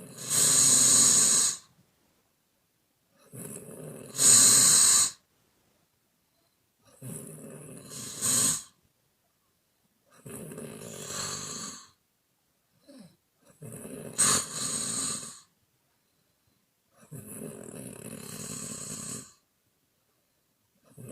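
A woman snoring in a regular rhythm: about six snores, each one and a half to two and a half seconds long, coming every three to four seconds. The snores are made on the exhale, and several end in a louder mouth blow.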